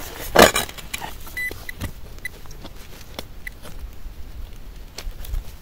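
Spade digging into stony soil about half a second in, then soft scraping and clicking of earth and stones. Through this, a metal detector gives short, high beeps while the hole is checked for the target.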